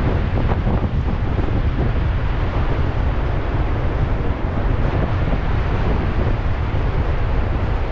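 Gale-force wind buffeting the microphone in a steady low rumble, over the broad wash of ocean surf.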